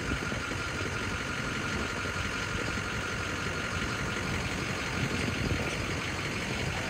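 An engine idling steadily, with a faint steady whine that fades out about halfway through.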